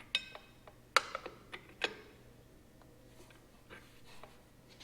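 Sharp metallic clicks and clinks of hand tools working on the tractor's belt-adjustment hardware, several in the first two seconds with the loudest about a second in, then only faint handling sounds.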